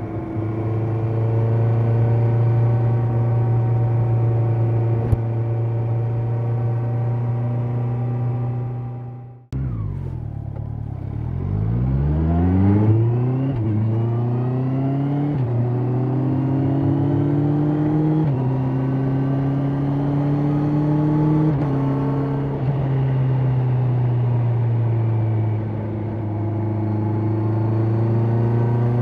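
Honda CB650R's inline-four engine and exhaust holding steady revs. After a brief dropout about a third of the way in, it pulls from low revs through several upshifts: the pitch climbs and drops back at each shift. It then settles to a steady cruise for the rest of the time.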